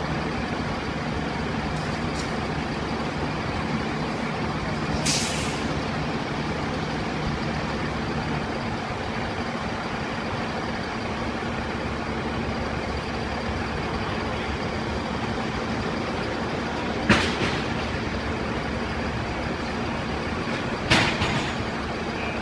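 A fire engine's diesel engine idles steadily. There are three short loud bursts of hissing air, one about five seconds in and two near the end.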